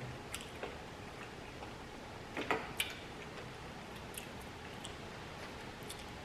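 A few faint, scattered clicks and taps over a quiet background, with a slightly louder cluster of clicks about two and a half seconds in.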